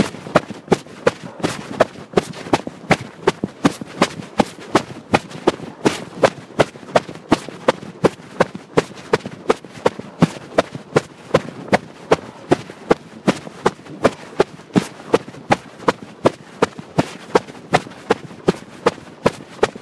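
Hurried footsteps on pavement, about three sharp steps a second at a steady jogging pace, picked up close by a carried recorder.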